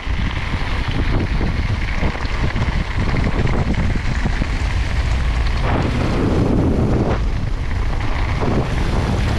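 Wind rushing over the microphone of a camera riding on a mountain bike at speed, over a steady low rumble with many small knocks and rattles from the bike running over the trail.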